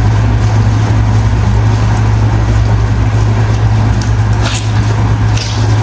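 A loud, steady low hum with an even hiss under it, with a few brief sharp noises near the end.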